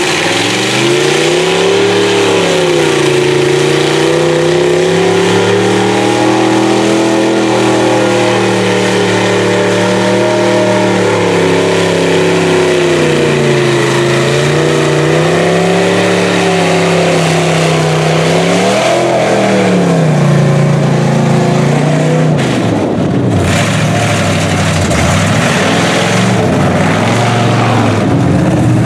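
Lifted mud truck's engine revving up and down in slow waves as the truck churns through a mud pit. It revs highest about two-thirds of the way through, then runs lower and steadier toward the end.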